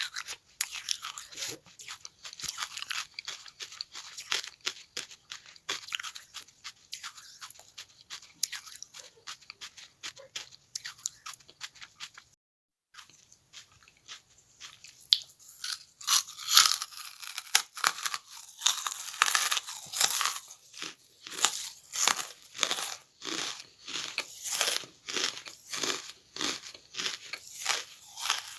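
A person biting and chewing charcoal: a steady run of crisp crunches that breaks off briefly about halfway, then comes back louder and more regular, about two crunches a second.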